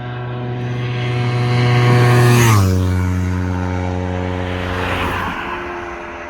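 Kawasaki Ninja 300 parallel-twin with an Akrapovic exhaust passing at high, steady speed: the engine note swells, drops sharply in pitch as it goes by about two and a half seconds in, then fades away.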